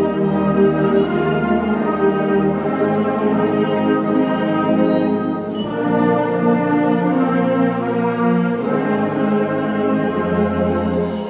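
Student concert band playing sustained wind and brass chords over a low bass line, the chords shifting about halfway through.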